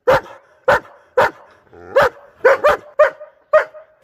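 German shepherd barking, about eight loud, separate barks with short gaps, two of them in quick succession a little past halfway.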